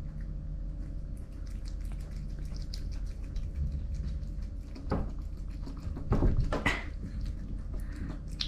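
A cat eating wet canned cat food from a plate: rapid small wet smacking and licking clicks, over a steady low hum. Two louder noises break in, about five seconds in and again around six to seven seconds in.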